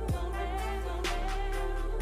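Background music with a singing voice and a slow, steady beat about once a second.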